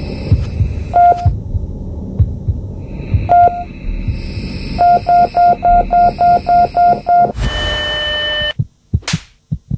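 Electronic outro sound design: low pulsing thumps over a steady hum, with short high beeps, first singly and then in a fast run of about four a second, ending in a burst of noise with steady tones near the end.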